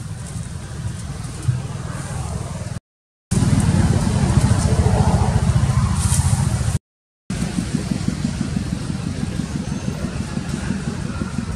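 Steady low rumble, cut by two brief complete dropouts and louder between them.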